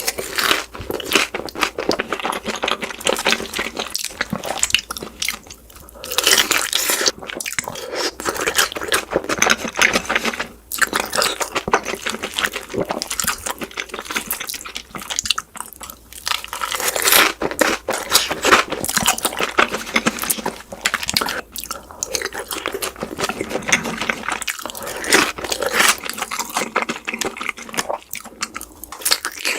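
Close-miked eating: a person biting, crunching and chewing food with loud, crackly mouth sounds, played back sped up.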